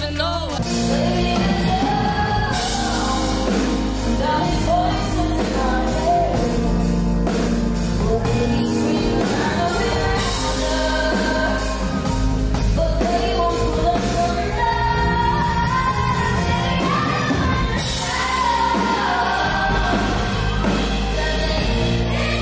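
Live pop concert audio: a female singer's sustained, wavering vocal lines over a backing band. The sound changes abruptly a couple of seconds in and again near the end, where one live clip is spliced to the next.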